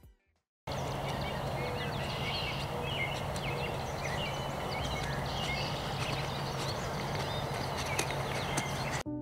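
Spring woodland ambience: many short bird chirps and calls over a steady hiss and low hum, with light footsteps on a dirt path. It starts suddenly just under a second in and cuts off near the end.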